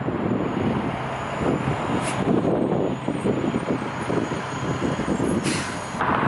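Jet engines of a Boeing 737 on the runway, heard as a low, steady rumble that wavers in strength, mixed with wind on the microphone.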